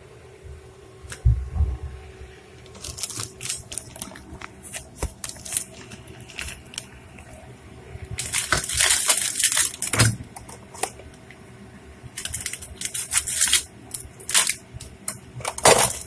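Plastic food package being handled, crinkled and torn open by hand: bursts of sharp crackling, densest about halfway through and again near the end.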